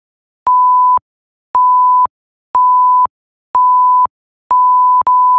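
Countdown timer's warning beeps for the last five seconds: five half-second beeps of one steady high tone, one a second, each starting and stopping with a slight click. A further beep begins right after the fifth, near the end.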